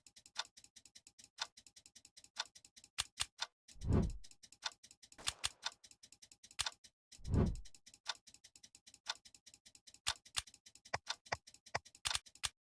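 Rapid, irregular clicking of computer keyboard keystrokes, broken by three short falling swooshes.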